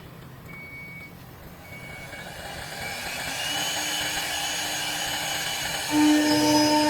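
CNC wood lathe running, its motors giving off a steady mechanical whine of several tones that grows gradually louder, then gets suddenly louder with a stronger whine about six seconds in.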